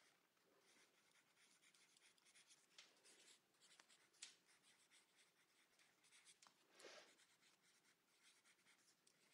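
Faint scratching of a pen writing on a photograph, in short irregular strokes with a few light ticks.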